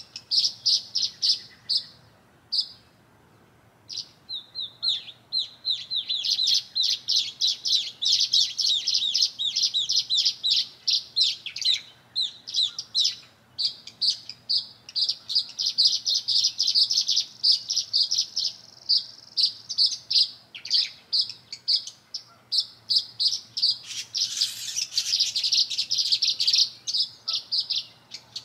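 Small songbirds chirping in a fast, steady run of short repeated calls, from the tree swallows and sparrow around the nest box, with a short pause about three seconds in and a louder burst of calls near the end.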